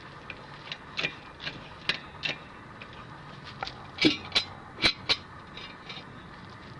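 Hydraulic floor jack being pumped to raise a car: a series of short clicks and knocks, about two or three a second, with a few louder knocks about four to five seconds in.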